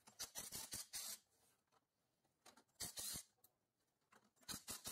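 Faint handling noise as bolts are worked off an engine cover with a cordless driver: a few short scratchy bursts and clicks, about three clusters, with quiet gaps between.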